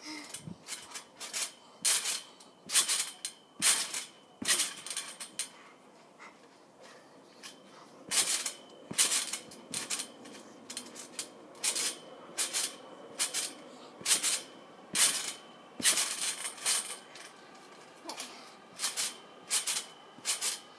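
A trampoline's mat and steel springs rattling with each bounce, about one bounce a second, in three runs broken by short pauses.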